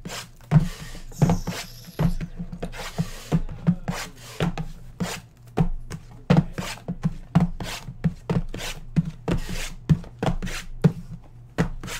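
Shrink-wrapped cardboard trading-card boxes being handled and stacked: irregular knocks and taps, about two a second, as the boxes are set against each other and the mat, with the plastic wrap rubbing between them.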